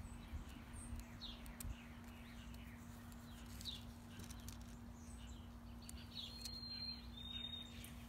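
Backyard songbirds chirping faintly with short scattered calls, then two longer whistled notes about six and seven seconds in. A faint low steady hum runs underneath.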